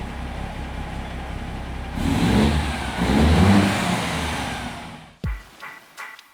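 Diesel engine of a 2002 Peterbilt 379 semi truck running, then pulling away under load with the revs rising twice about two and three seconds in before dying down. Music with a beat starts near the end.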